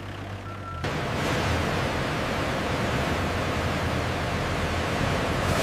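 One last beep of a truck's reversing alarm. Then, under a second in, the sound cuts suddenly to a steady rushing noise.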